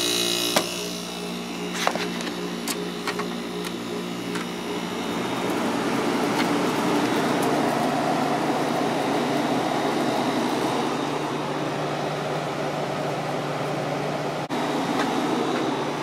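Fedders 7500 BTU window air conditioner's compressor running with a steady hum, its fan switched off. There are a few sharp clicks in the first seconds. From about six seconds in, the rush of the fan on low speed joins the hum.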